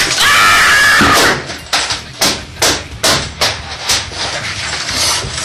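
A plastic computer keyboard being smashed in a tantrum, a run of hard knocks about two to three a second. It opens with a loud held yell of about a second.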